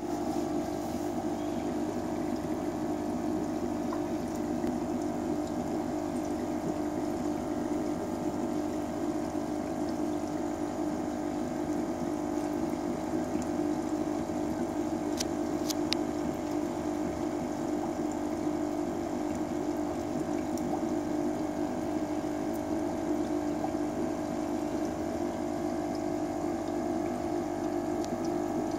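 Aquarium pump humming steadily, with water bubbling from a stream of air bubbles rising in the tank.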